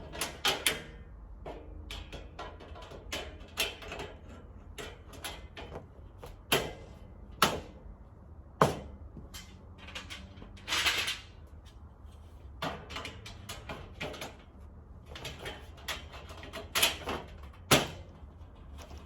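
Steel shelving parts knocking and clanking as braces are fitted onto the uprights: a string of irregular sharp knocks, with a brief scrape about eleven seconds in.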